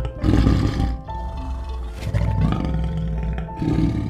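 Leopard calling: three rough, rasping calls about a second and a half apart, over background music.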